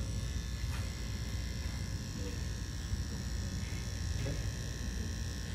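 Electric dog clippers running steadily, with a constant low hum and a thin high whine.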